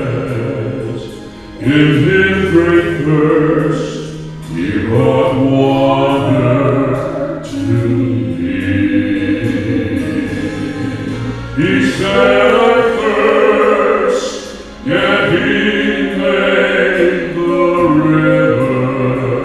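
A man and a woman singing a slow gospel song together as a duet, amplified through handheld microphones, in long held phrases with short breaths between them.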